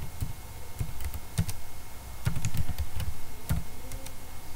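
Computer keyboard typing: a run of irregular keystroke clicks as text is entered, busiest in the middle.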